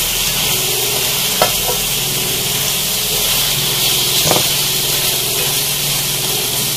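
Spinach and potato curry sizzling steadily in a pan in the water the spinach has released, while a spatula stirs it. The spatula knocks lightly against the pan twice.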